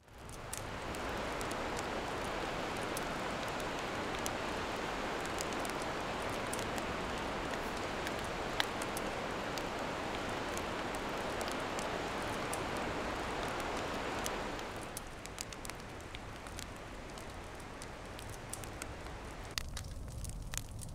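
Steady rushing of a river, with a campfire crackling and popping now and then. About fifteen seconds in, the rushing drops away and the fire's crackle comes to the fore.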